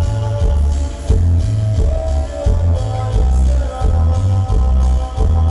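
Dance music played loud over a sonidero sound system, with a heavy bass beat repeating at an even tempo.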